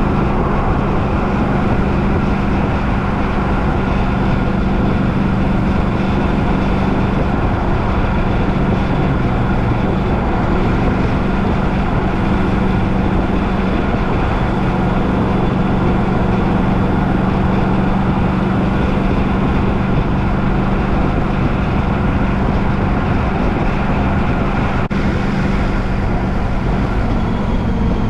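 Steady vehicle running noise: a constant low engine hum over a broad rumble, unchanging throughout.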